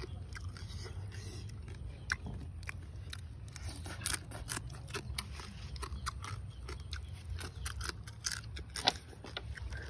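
Cooked crab shells being cracked apart by hand and crunched and chewed up close: a run of irregular sharp cracks and snaps, the loudest near the end, over a steady low hum.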